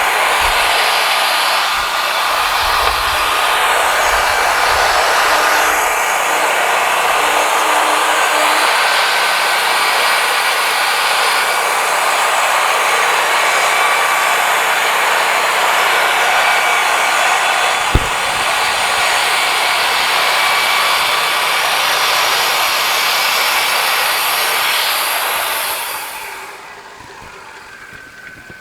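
Wood-Mizer LT40 band sawmill's blade cutting along a pine log, a loud, steady sawing noise over the mill's engine, with a single knock about 18 seconds in. About 26 seconds in the noise drops sharply as the cut ends, leaving the mill running more quietly.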